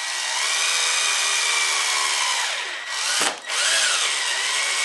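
Slim Makita cordless screwdriver running steadily, driving screws through a steel hinge mounting plate into MDF. It stops briefly about three seconds in, then runs again.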